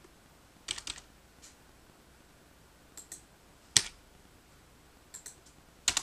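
Computer keyboard keystrokes and mouse clicks in short scattered groups, with one louder single keystroke about midway.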